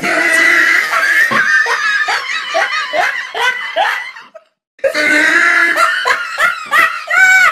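Loud laughter in quick repeated bursts, breaking off for about half a second a little past the middle, then starting again.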